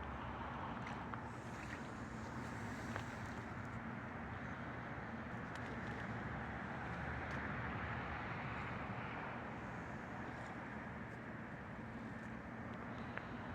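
Steady distant rumble of engines and machinery with a low hum, swelling a little about two-thirds of the way through.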